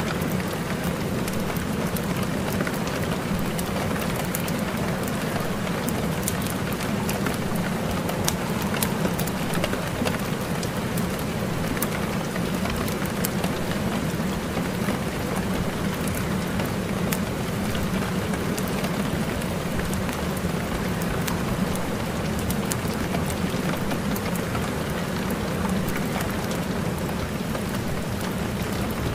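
Steady rain sound: an even hiss with a dense scatter of small drop clicks.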